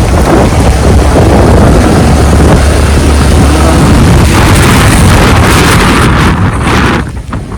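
Strong storm wind blasting the microphone: a loud, steady rumbling roar that drops off sharply about seven seconds in.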